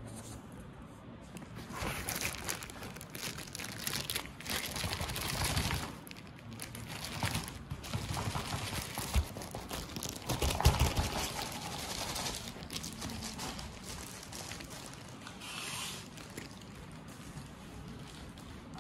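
Clear plastic wrapping crinkling and rustling as a bagged police-style LED light bar is handled, with a few knocks about ten seconds in. It tails off to quieter rustling over the last few seconds.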